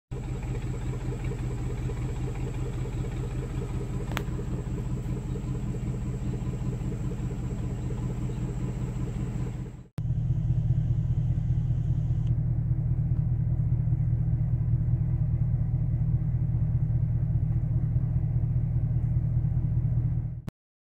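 Car engine idling, heard from inside the cabin as a steady low rumble. The sound drops out for a moment about halfway through and comes back slightly louder and duller.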